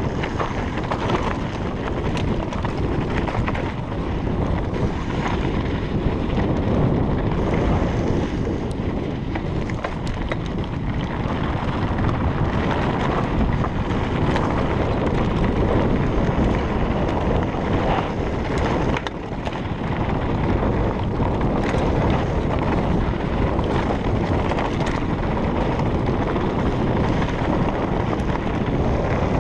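Kona Process 134 mountain bike riding down a dirt trail: wind rushing over the microphone, with tyre noise and the bike's rattles and clicks over rough ground.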